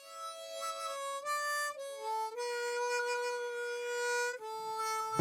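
Background music: a harmonica playing a slow melody of long held notes that slide from one to the next, the longest held about two seconds.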